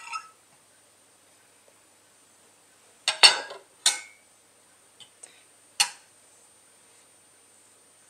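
Knife and fork clinking and scraping against a ceramic plate: a cluster of clinks about three seconds in, another just before four seconds, then a couple of faint taps and one last sharp clink near six seconds.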